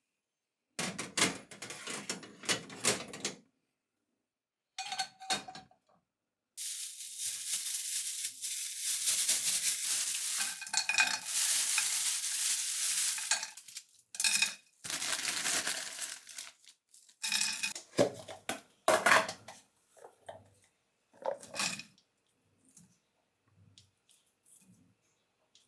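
Dishes and cutlery clattering as they are handled, in separate bursts with short pauses. A longer stretch of steady hiss comes about a quarter of the way in.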